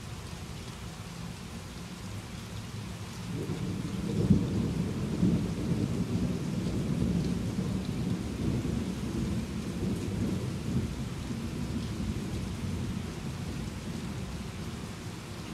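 Steady rain falling, with a long roll of thunder that starts about three seconds in, is loudest a second or two later, and rumbles on, slowly fading.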